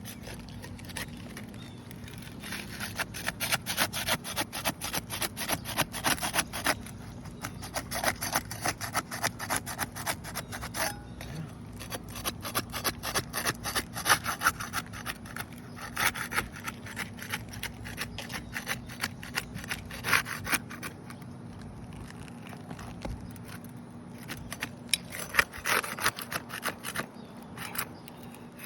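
Rapid back-and-forth scraping under a roof shingle as its seal is broken free, in bursts of a few seconds separated by short pauses.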